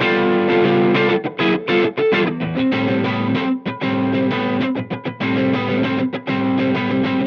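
Electric guitar played through a Cornerstone Antique Classic Drive V2, a Tube Screamer-style overdrive pedal, giving a mildly distorted tone. Held chords alternate with short choppy stabs.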